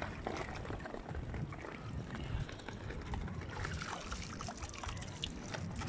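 Shallow seawater sloshing and splashing around wading legs, with scattered small splashes and drips, more of them in the second half.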